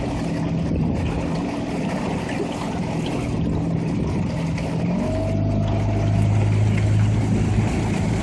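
Outboard motor of a rowing coach's launch running steadily at low speed, with wind and water noise. About five seconds in, its note drops and grows stronger.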